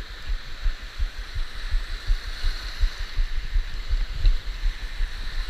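Shallow surf washing around a camera held just above the water: irregular low thumps and rumble on the microphone over a steady hiss of breaking waves.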